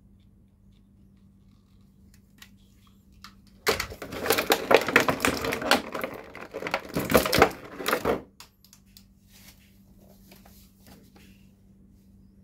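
Thin plastic blister tray crackling and crinkling loudly for about four seconds as a toy is pried out of it. A few light clicks and taps from handling come before and after.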